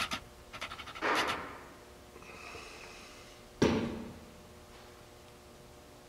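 Workshop handling noise: a few small clicks and a short rushing noise about a second in, then a single sharp knock at about the middle as a tube and transmission parts are handled on a steel workbench.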